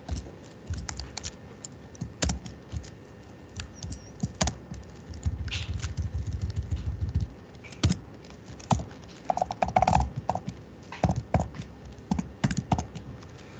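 Computer keyboard typing: irregular keystrokes, some in quick clusters, others with pauses in between.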